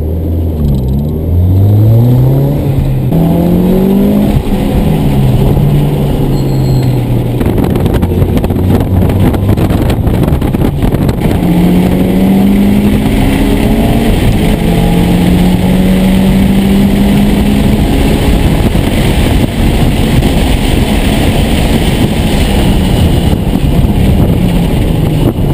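Mitsubishi Lancer Evolution IX's turbocharged four-cylinder engine under hard acceleration on track, heard from inside the cabin. The engine note climbs, drops at gear changes and when lifting off, and climbs again several times, over loud road and drivetrain rumble.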